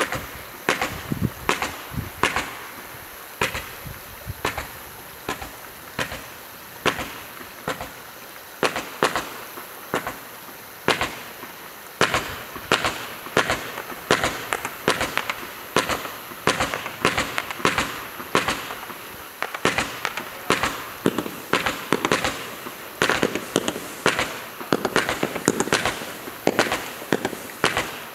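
Consumer fireworks firing in a long, irregular string of sharp bangs and crackles, one to three a second, coming faster from about halfway through.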